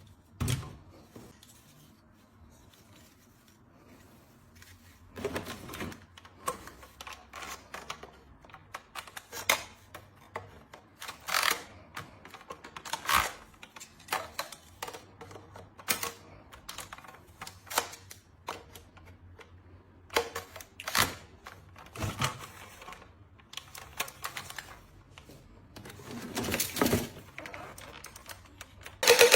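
Irregular plastic clicks and knocks, one every second or so with quiet gaps between, from a toy pistol and its packaging being handled.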